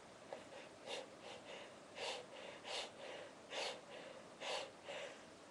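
A person's short gasping breaths, a run of them with the louder ones a little under a second apart: the build-up to a sneeze.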